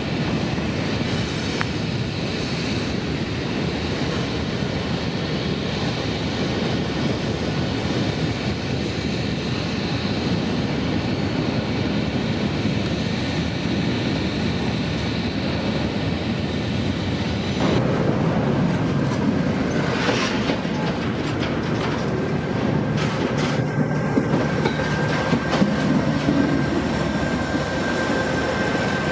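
Freight train passing, its wheels clattering over the rails. About two-thirds through the sound turns abruptly louder and closer as a diesel locomotive rolls by. A thin steady wheel squeal and a few sharp clanks follow near the end.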